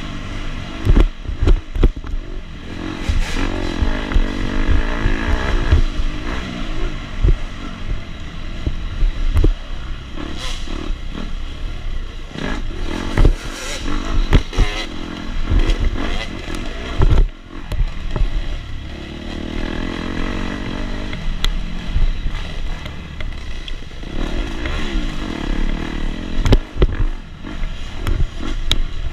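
A KTM 250 SX dirt bike's two-stroke engine under race load, revving up through repeated rising runs and dropping back, with frequent sharp knocks and rattles from the bike over rough ground.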